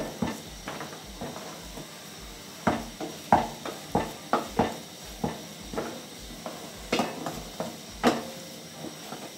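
Wooden cooking stick working thick ugali in an aluminium pot, knocking against the pot's side with short knocks about twice a second as the maize-meal dough is pressed and turned.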